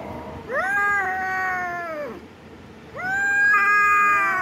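Kitten yowling while wrestling with another kitten: two long drawn-out meows, each held about a second and a half, with a short gap between them.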